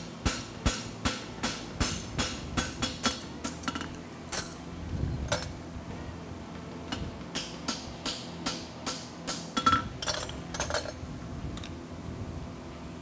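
Hand hammer striking a red-hot steel horseshoe on an anvil: a run of sharp blows about three a second, a pause of about two seconds, then another run. In the later blows the hammer drives a handheld fullering tool set on the shoe.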